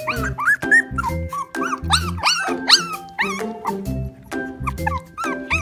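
Young Chow Chow puppies whining and yipping in many short calls that rise and fall in pitch, over background music with a steady beat.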